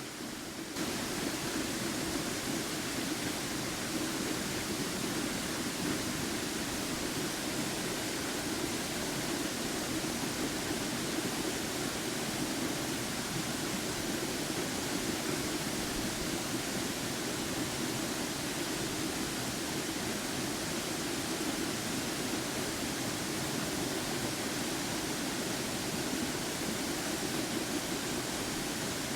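Waterfall's water rushing steadily and loudly, a constant even noise that steps up in level about a second in and then holds.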